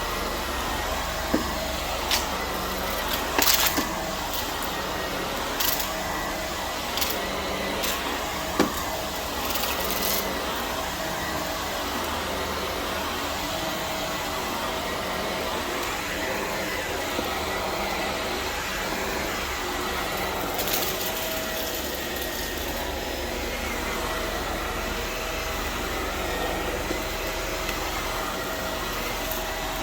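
Vacuum cleaner running steadily with a faint whine, and a few sharp clicks and rattles in roughly the first ten seconds.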